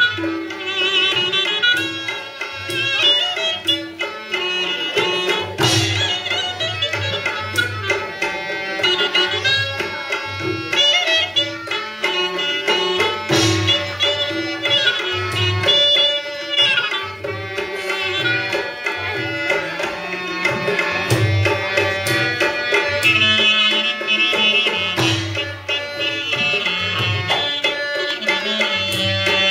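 Indian folk music: a hand drum beats a steady rhythm under an ornamented melody line.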